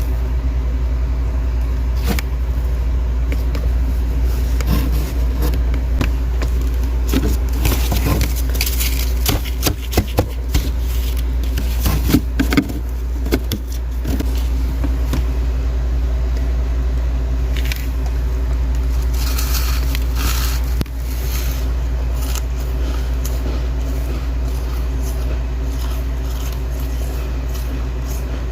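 A steady low machine hum throughout, with bouts of scraping and crackling as thick frost is scraped loose from inside a deep freezer, mostly in the middle of the stretch and again briefly about two-thirds of the way through.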